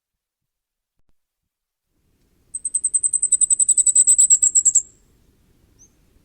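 Common firecrest singing: a rapid run of very high, thin notes, about eleven a second for a little over two seconds. The run grows louder and stops abruptly, and a single faint high note follows about a second later.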